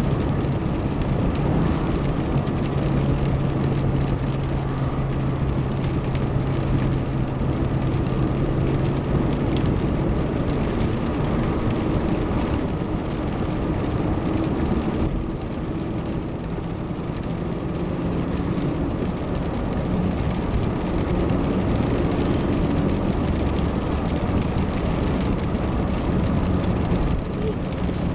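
Car cabin noise while driving: a steady engine hum over tyre and road noise. The engine's low tone shifts in pitch about ten seconds in.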